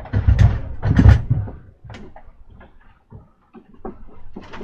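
A few heavy clunks and knocks, loudest in the first second and a half, then lighter scattered clicks and taps as things are handled.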